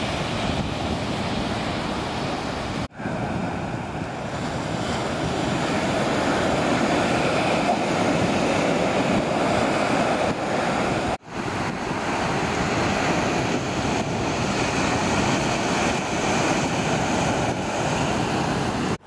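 Ocean surf breaking and washing up on a sandy beach, a steady rushing wash that breaks off for an instant twice.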